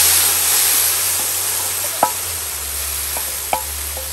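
Blended chili paste sizzling in hot oil in a wide aluminium wok just after being poured in, the hiss slowly dying down. A wooden spoon knocks lightly a few times as the paste is stirred.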